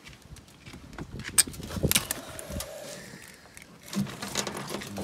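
Pliers clicking and scraping as they cut a thin wire snare off a pangolin; a sharp snap about one and a half seconds in is the loudest sound, with more clicks around two seconds in.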